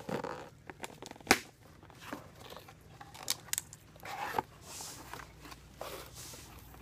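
Cardboard shipping box being opened and handled by hand: flaps rustling and scraping, with scattered clicks and a single sharp click about a second in.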